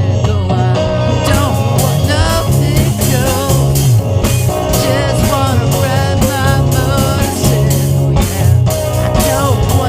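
Rock band playing with drum kit, bass and electric guitar, with a wavering lead line over a steady beat.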